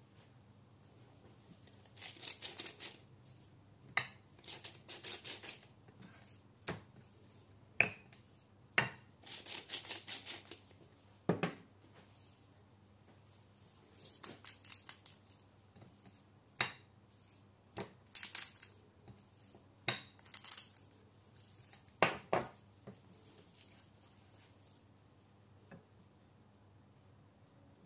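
Kitchen prep of pork chops on ceramic plates: scattered light clicks and knocks of the meat and fingers against the plates, with about half a dozen short scratchy bursts as the chops are seasoned with salt and handled in the coating.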